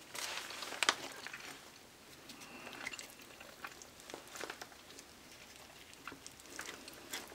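Faint, scattered rustles and soft clicks of hands tearing a piece of roti and scooping curry with it from a plate.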